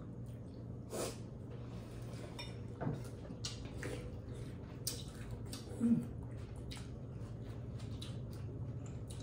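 Messy hand-eating of a Cajun seafood boil: scattered wet clicks and smacks as sauce-covered crab shells and shrimp are pulled apart and chewed, over a low steady hum.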